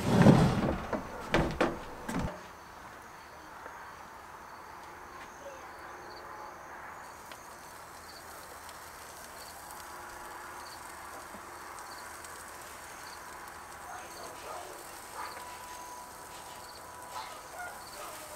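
A few knocks and handling bumps in the first two seconds, then quiet outdoor background with a light steady hiss and faint, repeated high insect chirps.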